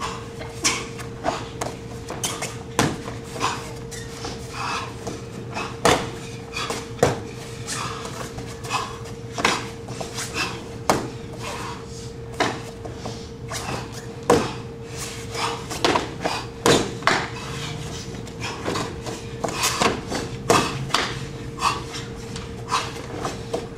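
Martial artist performing an empty-hand form: an irregular run of sharp snaps and slaps from his uniform and strikes, roughly one to three a second, some much louder than others. A steady hum runs underneath.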